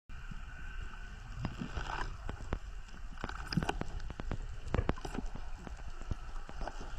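Underwater crackle: many irregular sharp clicks and pops over a low rumble.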